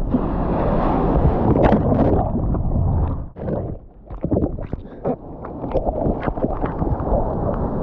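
Surf water rushing and splashing around the camera, with wind buffeting the microphone. It dips briefly quieter about three and a half seconds in, then rushes again.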